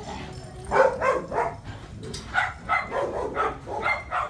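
Dog barking: a quick run of three barks about a second in, then about six more from about two seconds in.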